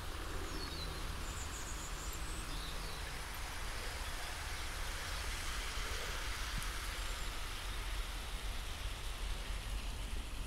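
Steady outdoor noise, a low rumble with an even hiss, with a European robin singing faintly in a few short high phrases between about half a second and three seconds in.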